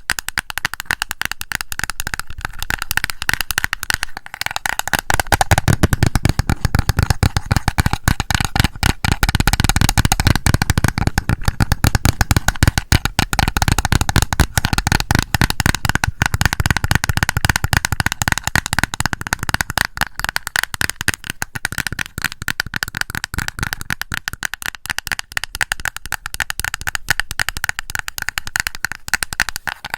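Rapid, continuous tapping on a blush compact, with a fuller, deeper layer of taps from about five seconds in until about twenty seconds.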